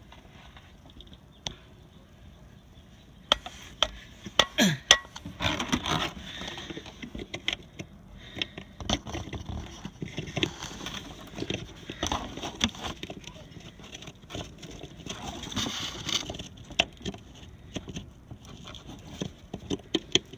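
Hands working plastic parts while a fog light bulb is fitted into its housing: irregular clicks, taps and scraping, with bursts of rustling handling noise.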